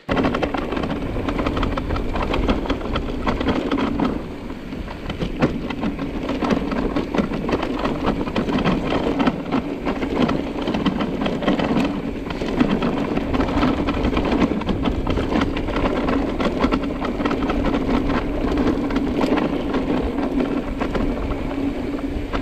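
Electric mountain bike being ridden along a trail: a steady rush of tyre and wind noise full of small clicks and rattles, over a constant low hum.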